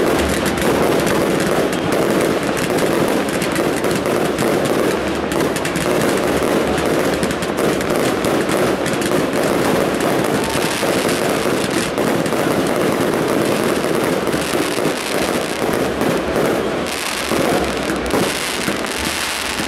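Fireworks finale: a dense barrage of shells bursting and crackling, the reports running together almost without a break, thinning a little near the end.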